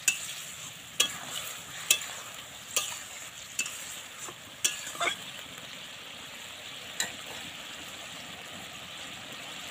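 Metal spatula stirring and scraping vegetables in a kadai, clinking against the pan about once a second and then stopping after about seven seconds, over a steady sizzle of the potato and banana curry frying in oil.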